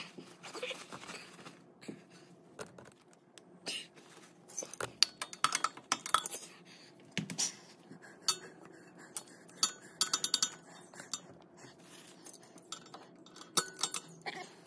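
Metal clicks and clinks of pliers working a hose clamp back onto a hydraulic hose. The clinks come sharp and irregular, with a fast run of clicks past the middle.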